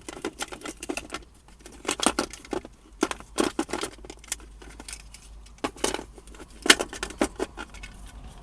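Irregular clicks, knocks and rattles of hands working a plastic OBD-II diagnostic link connector out of its mount, with one sharper click about two thirds of the way through.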